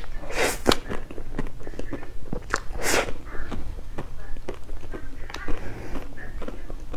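Close-up eating sounds: a person chewing with small mouth clicks, and a few short, louder noisy bursts.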